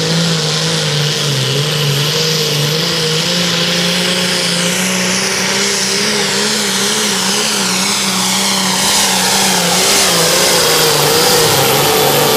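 Ford 8630's turbocharged six-cylinder diesel running flat out under full load as it pulls the sled, its pitch held fairly steady with slight wobbles. It gets a little louder over the last few seconds.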